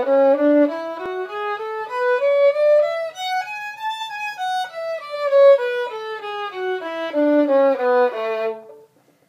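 Violin playing a scale one note at a time, climbing about two octaves from a low note and then coming back down, with the notes stopping shortly before the end.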